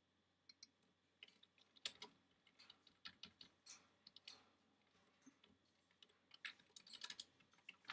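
Faint clicking of a computer keyboard being typed on: irregular keystrokes in quick clusters, with short pauses between them.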